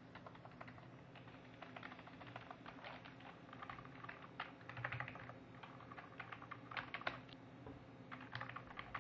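Faint, irregular clicking like keys being typed on a computer keyboard, busiest around the middle. Under it runs a steady low buzz, the sound the title reports from a faulty Powercolor HD7850 PCS+ graphics card that gives a black screen.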